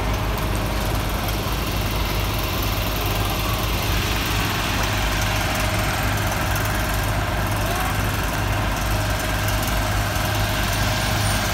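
Steady rain falling on a wet city street, an even hiss, over the low steady hum of a vehicle engine idling close by.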